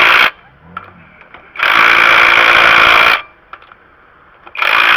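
Impact wrench hammering on lug nuts in bursts of about a second and a half. One burst cuts off just after the start, another runs through the middle, and a third starts near the end.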